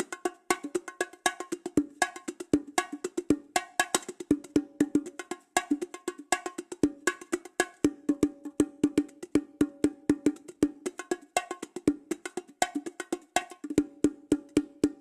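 Fisher-Price toy bongo drums being struck in a quick, uneven rhythm of several hits a second, each hit short and pitched, alternating between two drum tones.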